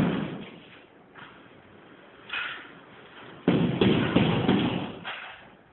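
A partition wall panel being wrenched at by hand: a sharp thud at the start, then, about three and a half seconds in, a loud burst of banging and scraping that lasts under two seconds.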